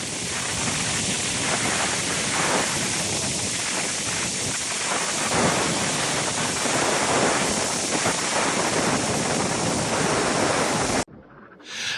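Steady roar of rushing water, an even hiss with no pauses, cutting off suddenly about eleven seconds in.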